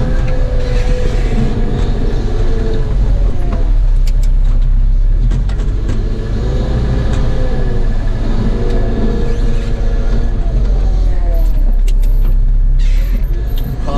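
Cat 914G wheel loader's diesel engine running, heard from inside the cab. It revs up and settles back down twice as the loader works and drives.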